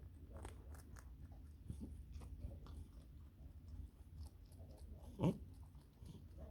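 Small pet chewing and crunching food: a quick, faint run of small crisp bites, with one short louder sound about five seconds in.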